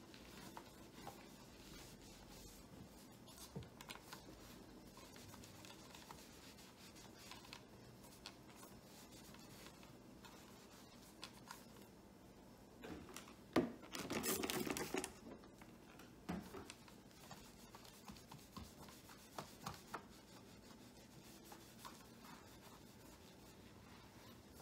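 Cloth wiped over the plastic back of a computer monitor: faint, steady rubbing with scattered light clicks, and a louder rustling burst lasting about a second and a half a little past halfway.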